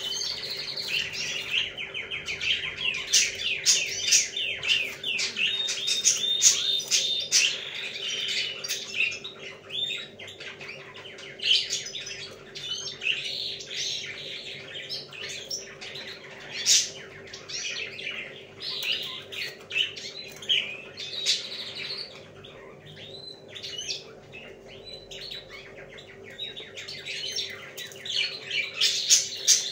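Many small birds chirping and twittering at once in a dense, overlapping chorus, busiest in the first several seconds and again near the end.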